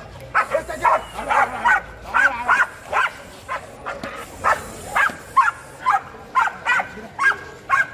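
A pit bull–type dog barking rapidly and repeatedly, about two to three short barks a second, while straining and lunging on a chain leash.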